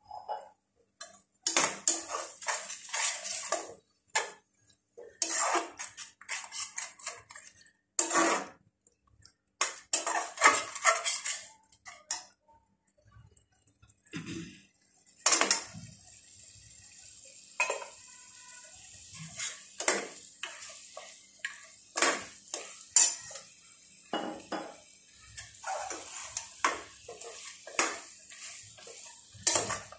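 A steel spatula scraping and stirring against the bottom of an aluminium Prestige pressure cooker, in repeated short bursts, while onions and spice powders are sautéed in oil. From about halfway a faint steady sizzle of the frying masala runs underneath the scrapes.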